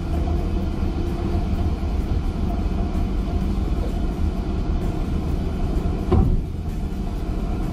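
Steady low machine hum of a stern trawler's deck machinery as the winch hauls the full codend up the stern ramp, with a single thump about six seconds in.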